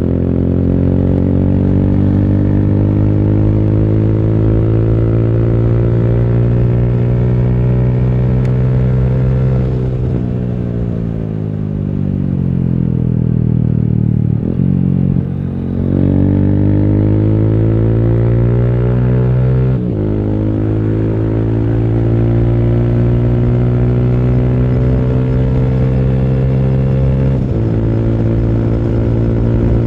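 Yamaha YBR 125G single-cylinder motorcycle engine and aftermarket exhaust pulling under throttle: the engine note climbs steadily, falls away about ten seconds in, breaks off briefly at a gear change around the middle, then climbs again, with short breaks at further shifts near twenty seconds and near the end. The new exhaust has a louder, higher note.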